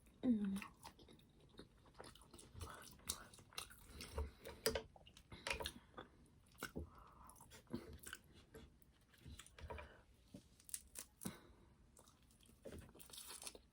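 Close-miked eating: chewing with many scattered crunches and clicks from snow crab shells being cracked and picked. A brief falling vocal hum comes just after the start.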